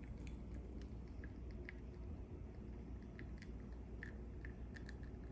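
La Pavoni lever espresso machine pulling a shot under lever pressure: faint, irregular small crackles and ticks over a steady low hum, with the coffee ground a little fine for the machine.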